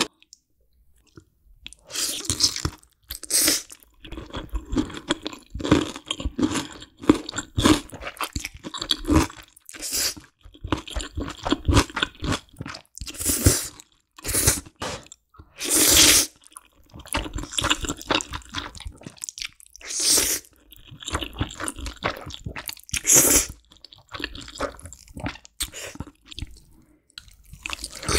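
Close-miked crunching and chewing of radish kimchi, crisp bite after bite with a few louder crunches, after a short quiet moment at the start.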